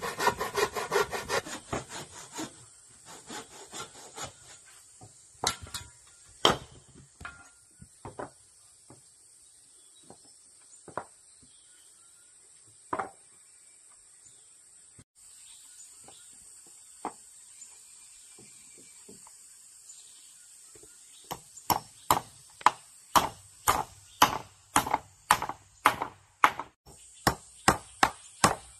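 A hand saw cutting a wooden board in quick strokes for the first two seconds or so, then scattered single knocks of wooden blocks being handled. From about twenty seconds in comes a steady, regular run of claw-hammer blows driving a nail into a wooden block.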